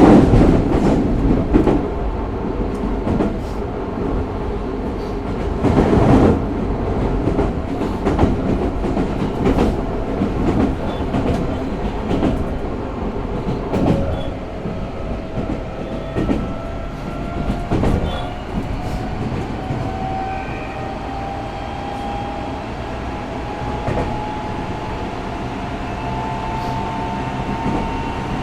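Interior running noise of a Tokyo Metro 05 series subway train with Mitsubishi IGBT inverter drive: steady rumble with wheels knocking over rail joints. From about halfway a thin whine rises slowly in pitch as the train gathers speed.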